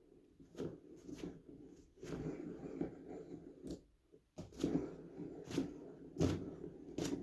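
Foley handling noises: rustling and scraping, broken by about half a dozen sharp clicks and knocks.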